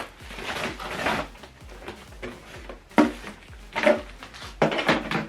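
Packaging being handled during an unboxing: several short rustling, scraping noises and a sharp knock about three seconds in.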